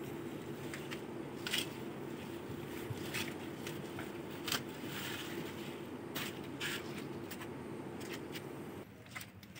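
Zucchini leaves and stems being handled, with scattered crackles and sharp clicks from rustling and snapping foliage, over a steady low hum that cuts out near the end.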